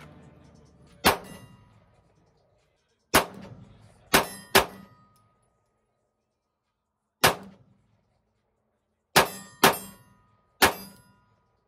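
Eight pistol shots fired from a holster draw, in uneven groups: a single shot, then three close together, a single, and three more. Each is a sharp crack with a short ringing tail.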